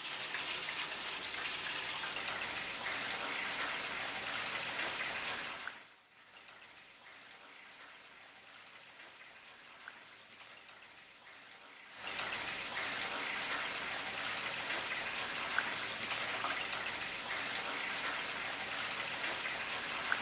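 Potatoes sizzling and bubbling in hot oil in the wire basket of a stainless steel electric deep fryer, a steady frying hiss. About six seconds in it falls to a faint hiss, and about six seconds later it comes back as strong.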